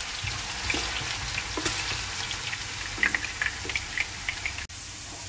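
Diced potatoes frying in hot oil in a frying pan: a steady sizzle with scattered small crackles and pops. The sound drops out for an instant about four and a half seconds in, then the sizzle carries on.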